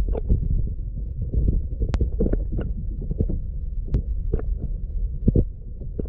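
Muffled low rumbling and thumping, with a few sharp clicks about every two seconds, the high end cut off as if the camera's microphone is covered: handling and movement noise close to the camera.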